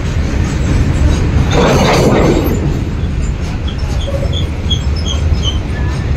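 Train running on the tracks: a steady low rumble with a louder rushing swell about two seconds in. Near the middle, a quick run of short high chirps.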